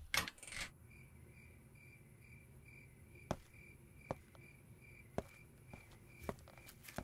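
Crickets chirping steadily, about three even chirps a second. Right at the start a door lock clicks and the door opens, and a few faint knocks follow later.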